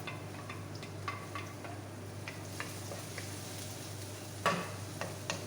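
Garlic frying in hot cooking oil in a pan, sizzling steadily while a utensil stirs it, with short clicks and scrapes against the pan and one louder knock about four and a half seconds in.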